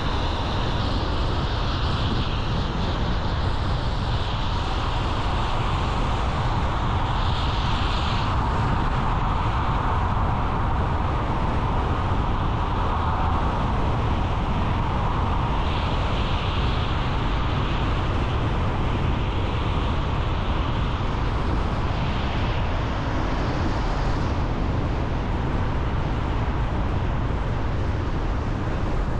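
Car driving along a road: steady tyre and road noise over a low engine rumble, with a few brief swells of higher hiss.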